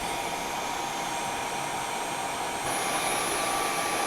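Dyson V11 cordless stick vacuum running steadily in Eco mode, a rush of air with a thin high whine. About two-thirds of the way through, the whine steps up in pitch and the sound gets a little louder as the vacuum switches to its next power mode, Medium/Auto.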